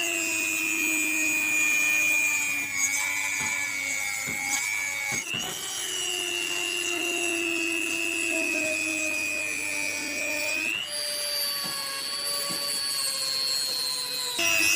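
Rotary die grinder spinning a small abrasive cut-off disc through a metal screw and rod: a steady high whine whose pitch sags slowly as the disc bites, jumping back up about five and eleven seconds in.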